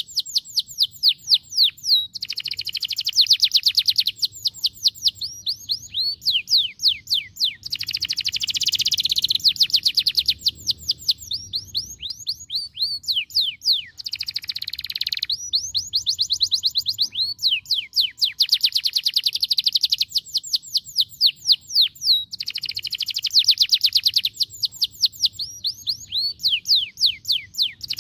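Domestic canary singing a long, continuous song of rapid trills: fast runs of descending notes alternating with buzzy rolls, each phrase lasting a second or two.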